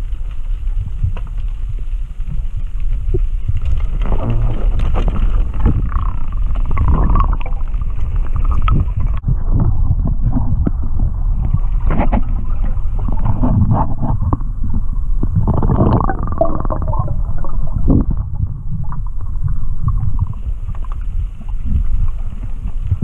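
Muffled underwater rumble of water moving against a submerged camera housing, with louder gurgling, sloshing swells several times.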